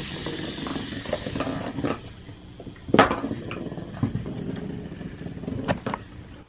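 HexBug robotic mouse toy scurrying across a hardwood floor, its small battery motor buzzing and rattling, with several sharp clicks, the loudest about three seconds in.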